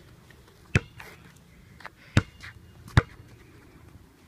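Basketball bouncing on a concrete driveway: three sharp, loud bounces at uneven intervals, with a couple of fainter taps between them.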